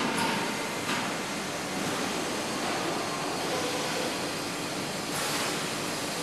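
Machinery running steadily on a beer-keg handling line with an industrial robot arm, with two short metallic knocks near the start and about a second in, and a brief rush of hiss about five seconds in.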